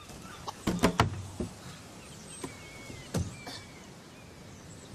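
A handful of short knocks and thumps, several in the first second and a half and two more after about three seconds, with a few faint high squeaks in between.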